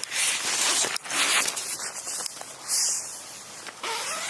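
Rustling and rasping of tent fabric and a tent zip being opened, in several noisy bursts, with a sharper, higher rasp about three-quarters of the way in.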